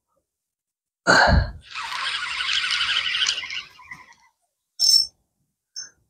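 Broken-up audio from a faulty microphone: sound cuts out to dead silence between short bursts, first a loud thump and a couple of seconds of hissing noise, then two brief blips with a high ringing tone near the end.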